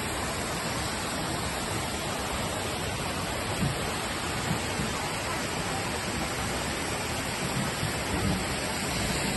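Steady rush of water from a rocky mountain stream spilling over a small weir.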